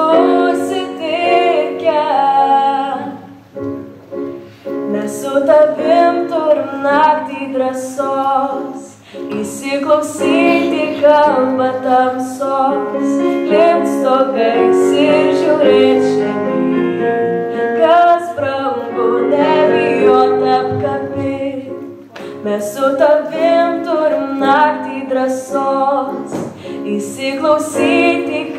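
A young woman singing a song solo into a microphone over instrumental accompaniment, with short breaths between phrases.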